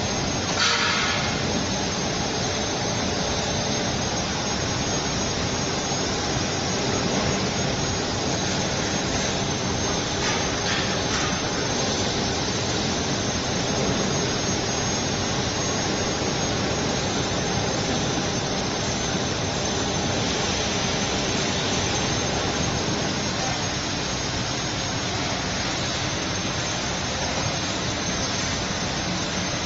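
Steady, loud machine noise as a roller-blind fabric cutting machine runs, with a few short hisses about half a second in and again around ten seconds in.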